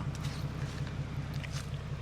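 An engine idling with a steady, low, evenly pulsing rumble, with a few faint clicks over it.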